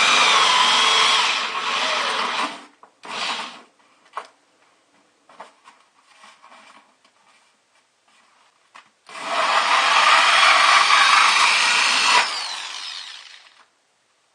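Power drill with a hole saw cutting through a styrofoam bucket liner, in two runs of about three and four seconds with a squeal that slides in pitch, and a few knocks in the pause between them.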